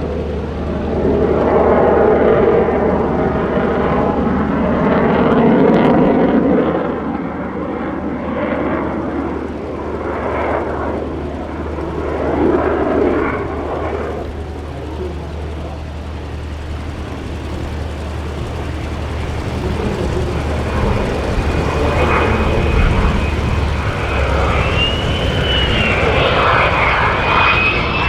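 Lockheed Martin F-35A Lightning II's afterburning turbofan engine running during a flying display, its noise swelling and easing as the jet moves around the sky. A high whine comes in about three quarters of the way through and wavers in pitch.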